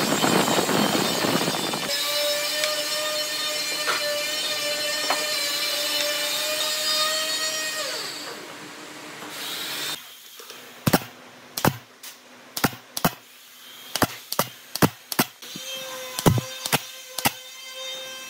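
Woodworking power tool's motor running with a steady whine after a burst of cutting noise, then winding down and stopping about eight seconds in. From about ten seconds in, a run of sharp, irregularly spaced knocks on wood, with a faint steady hum returning near the end.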